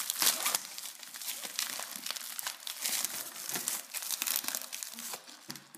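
White plastic shipping wrapping crinkling and crackling as hands pull and tear it open around a cardboard box. The crackling is densest in the first second and thins out near the end.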